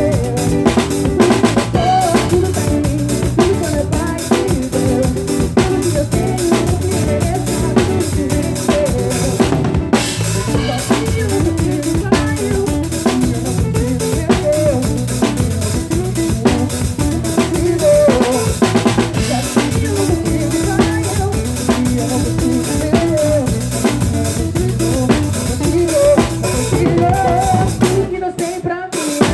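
Live pagode band music led by a drum kit, with snare, bass drum and rimshot strokes over bass and pitched instruments. The band breaks off briefly near the end before coming back in.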